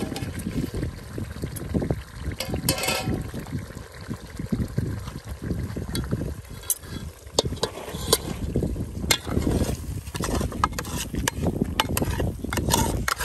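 Runny oily tomato-and-spice tempering (vaghar) sloshing and trickling in an aluminium pot as a metal ladle stirs and scoops it, with sharp clinks of the ladle against the pot. Near the end, the ladle scrapes as the pot is tipped to pour the tempering out.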